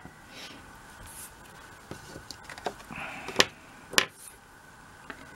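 Hands moving paper and small crafting pieces about on a work mat: soft rustling and sliding, with a brief scrape and then two sharp taps, about half a second apart, as things are set down.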